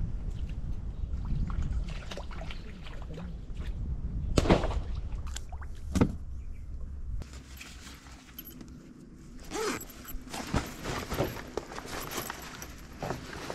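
Wind rumbling on the microphone with two sharp knocks, then scattered rustling and small clicks as the nylon bag of an inflatable paddle board is picked up and handled.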